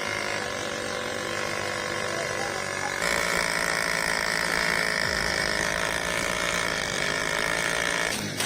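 Small motorcycle engine running hard under load with a steady mechanical whine. The sound jumps louder at an abrupt change about three seconds in.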